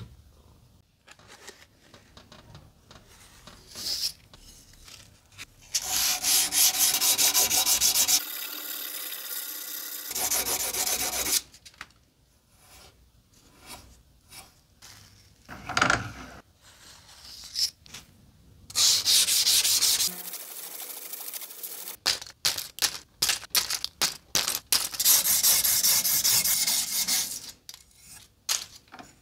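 Steel blade of a carbon-steel sashimi knife (yanagiba) being rubbed against an abrasive by hand in back-and-forth strokes to remove rust. It comes in spells of steady rubbing, then a run of quick short strokes near the end.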